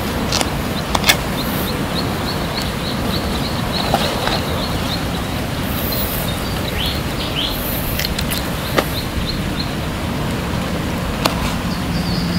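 Outdoor ambience: a steady low rumble, with a bird repeating a short high chirp about four times a second for most of the stretch, then falling quiet. A few sharp clicks sound now and then.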